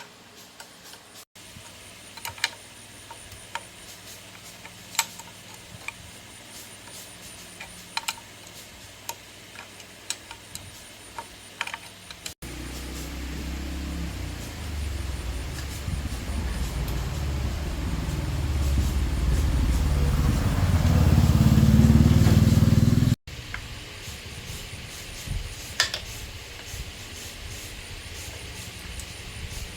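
A small motorbike engine running for about ten seconds, getting louder and rising in pitch before cutting off suddenly. Before and after it, a low steady hum with scattered light clicks and taps.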